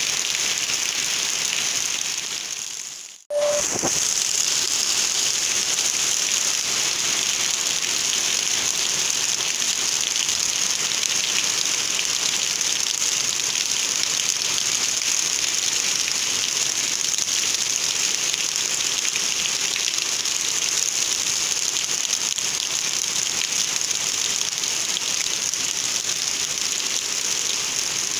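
Heavy rain falling steadily, a dense even hiss. About three seconds in it fades out briefly and cuts back in abruptly.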